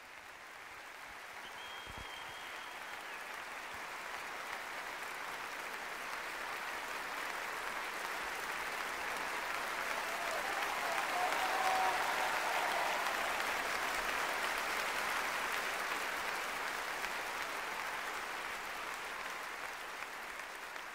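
Audience applauding, swelling to its loudest about halfway through and then slowly dying away.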